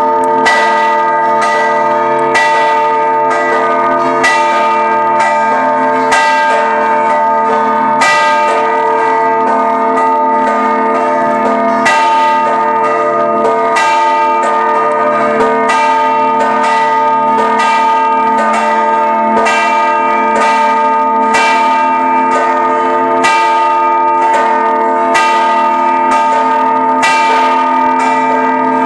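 Church bells ringing a continuous festive peal for a procession: several bells struck in quick, overlapping succession over their steady ringing hum, at an even level throughout.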